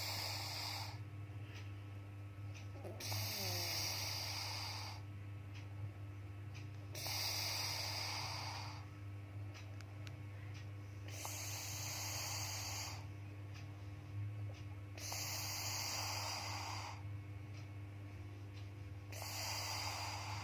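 A man snoring in his sleep, a hissing snore about every four seconds, each lasting around two seconds, over a steady low hum.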